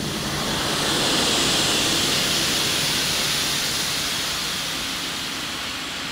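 Slowed-down, sound-designed rush of a .308 rifle shot through a see-through cast acrylic suppressor: a long, even rushing hiss that swells about a second in and slowly fades.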